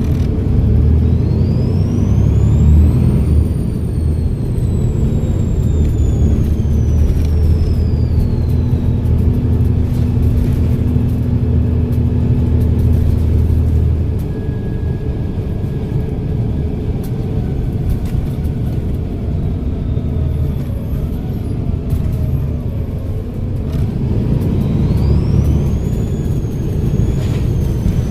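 Volvo B7RLE bus's six-cylinder diesel engine running under load, with a high turbocharger whistle rising in pitch as it pulls away, then slowly falling. The engine eases off about halfway through, and near the end the turbo whistle rises again.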